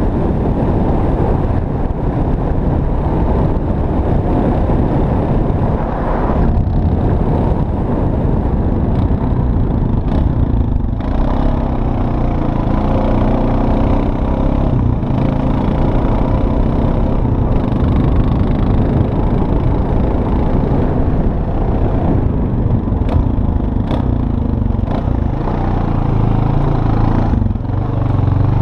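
Honda Rancher 420 ATV's single-cylinder engine running steadily as the quad drives through deep snow, its note rising near the end.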